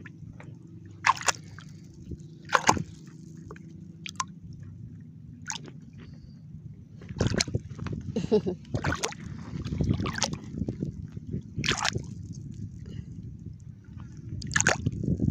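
Hand sloshing and splashing in shallow water while groping in the muddy bottom for clams: a few separate splashes at first, then busier splashing from about halfway through.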